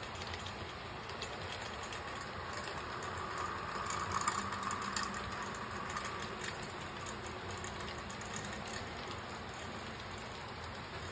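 HO scale model freight cars rolling past on the track: a steady rattle of plastic and metal wheels with faint clicks over the rail joints, growing louder about four seconds in and easing off again.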